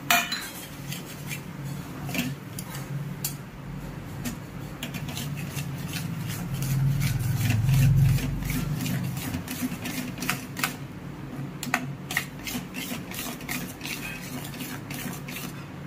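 Metal spatula scraping and clicking against a steel pan in quick, irregular strokes while mawa is stirred into hot sugar syrup. A low hum runs underneath and swells to its loudest about seven to eight seconds in.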